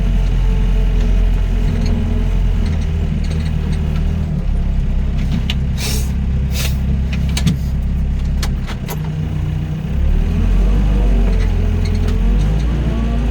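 Doosan DX55 mini excavator's diesel engine running under load while it works, its pitch sagging briefly about eight seconds in and then picking back up. Two short hisses come about six seconds in, with a few sharp clanks after them, and a rising and falling hydraulic whine near the end.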